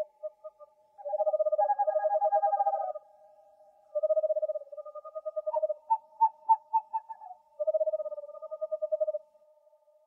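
Owl calls: three long trilled phrases, sometimes two voices at different pitches at once, with a short run of separate hoots between the second and third.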